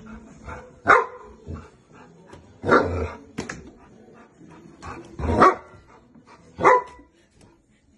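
St. Bernard barking during play, four loud barks spread across a few seconds.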